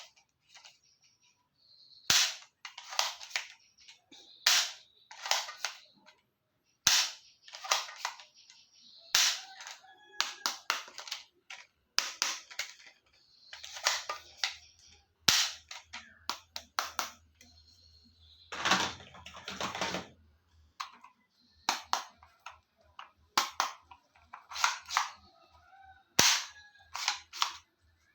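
Toy gun firing a long, irregular series of sharp shots, one every second or two, each with a short hissy tail.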